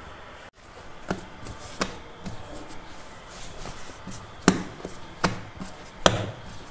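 Risen bread dough being punched and slapped by hand against a flour-dusted stone countertop to knock it back: a series of irregular dull thumps, the loudest about four and a half seconds in.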